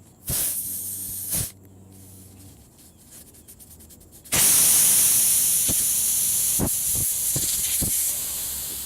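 Compressed air hissing out of the punctured tire at the failed plug: a short hiss near the start, then a loud, long hiss from about four seconds in that slowly fades as the tire deflates, with a few small knocks during it.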